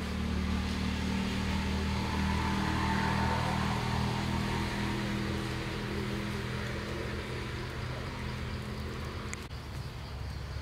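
Steady low hum of a running engine, dipping slightly near the end.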